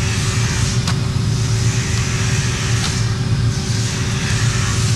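A steady, loud low rumble with a constant hum, with two faint clicks about one and three seconds in.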